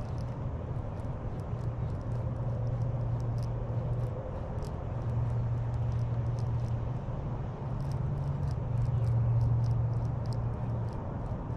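A steady low hum, like a small motor running, swelling and easing in stretches, with faint scattered ticks above it.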